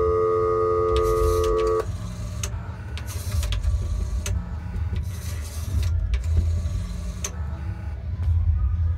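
Telephone dial tone in a pay phone's handset, cutting off about two seconds in as dialing begins, followed by the clicks and rasps of the rotary dial being turned and spinning back for several digits.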